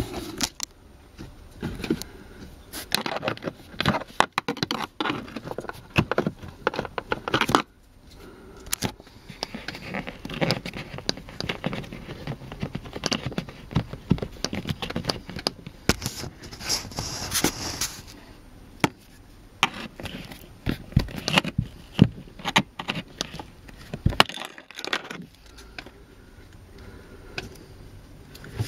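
Plastic dashboard trim cover on a Mercedes-Benz W202 being pried loose with a plastic trim tool: irregular clicks, scrapes and rattles of plastic on plastic.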